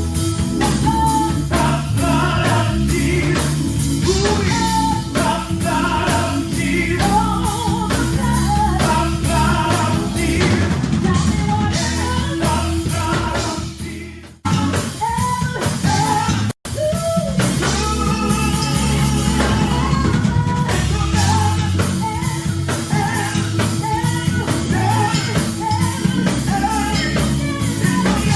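Gospel praise music: voices singing over a band with a drum kit. The music cuts out sharply twice for a moment around the middle.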